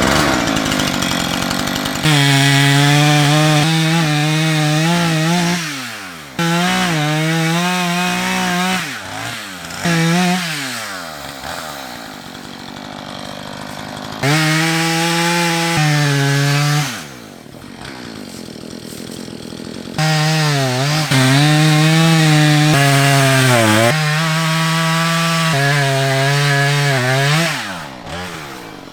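Chainsaw cutting into a tree trunk to fell it, running at full revs under load in several long stretches and dropping back toward idle between cuts.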